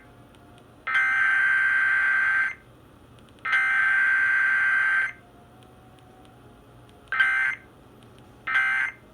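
Emergency Alert System SAME data bursts on a radio broadcast: harsh, buzzing digital tones. Two long bursts of about one and a half seconds come a second apart, the closing header bursts. About two seconds later come two short bursts, the end-of-message code.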